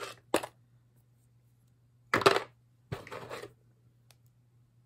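Costume jewelry clattering as pieces are picked through and set down: a sharp click just after the start, then two short bursts of rattling about two and three seconds in, the first the loudest. A low steady hum runs underneath.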